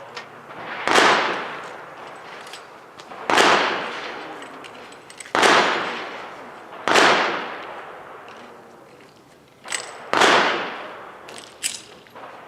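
A .380 semi-automatic pistol fired five times at an uneven, deliberate pace, each shot a sharp crack followed by a trailing echo.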